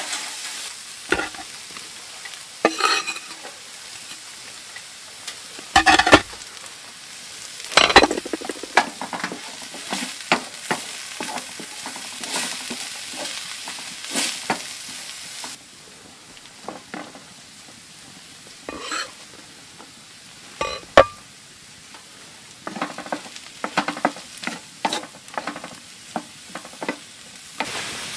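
Food sizzling in a pan on a wood stove while a utensil stirs it, with frequent knocks and clinks against the pan. The sizzle gets noticeably quieter about halfway through.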